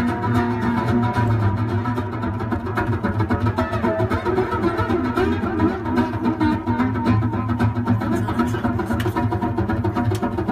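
Live amplified experimental music: a dense, steady drone of layered sustained tones over a constant low hum.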